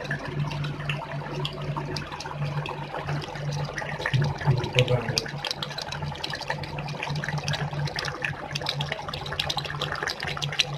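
Fish kuzhambu, a tamarind curry, boiling in a steel pot, with many small bubbles popping over a steady low hum.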